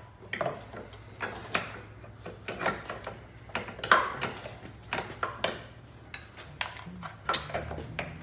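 Irregular metal clicks and knocks as a BMW R 1200 GS front shock is worked by hand into its frame mounts, the loudest about four seconds in.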